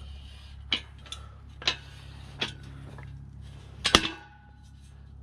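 Steel boom of a 2-ton folding engine hoist being pulled up by hand, its hydraulic ram drawn out with it: a few sharp metal clicks and creaks from the pivots, then a louder clank about four seconds in that rings briefly.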